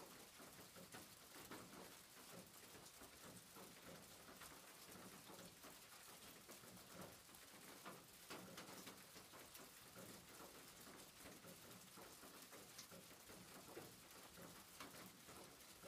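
Near silence: faint background hiss with scattered small ticks.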